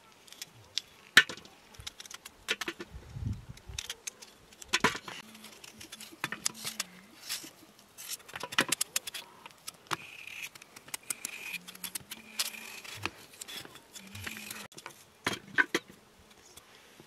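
Hand-peeling raw potatoes with small knives: irregular scraping and clicking of the blades through the skins, with a few sharper, louder clicks.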